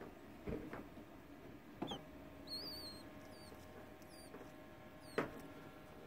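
Quail chick peeping as it hatches: faint, high, wavering cheeps, with a longer run of them about two and a half seconds in. A few soft knocks fall near the start and about five seconds in.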